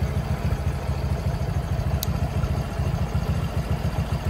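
Honda XRM110's small single-cylinder four-stroke engine idling steadily, a fast, even low chugging.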